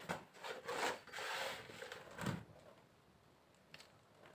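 Hands working potting soil around a transplanted plant in its pot: rustling and rubbing, with one soft thump about two seconds in.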